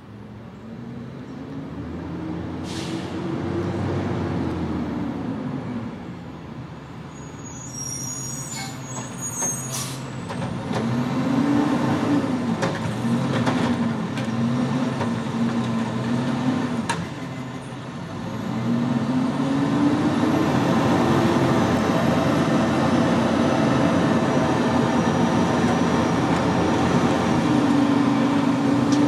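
Front-loader garbage truck with a Curotto-Can cart arm, its diesel engine revving up and down as it moves in. A brief high air-brake squeal and hiss comes about eight to ten seconds in. Later the engine climbs and holds a steady, louder, higher note.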